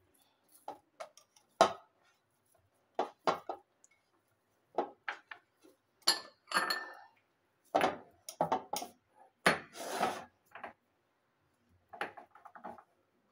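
Bowls handled while dough is kneaded and moved: irregular knocks and clinks of a plastic mixing bowl and a glass bowl against the counter, with a few short scraping rubs of hands and dough against the bowl.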